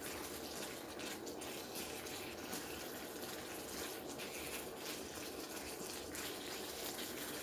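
Spicy marinated webfoot octopus frying in a pan over a canister gas camping stove: a steady sizzle and hiss with faint crackles.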